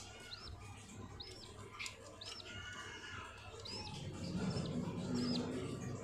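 Budgerigars chirping: short high arched calls about once a second over soft warbling chatter.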